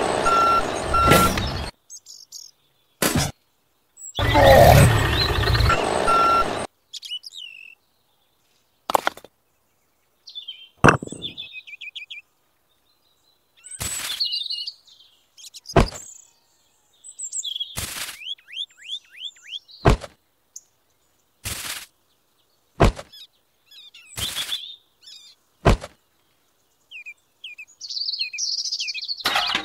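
Sharp taps every one to two seconds as miniature cardboard cement boxes are set down by hand on a toy trailer, with bird chirps between them. A loud rushing noise comes twice in the first seven seconds.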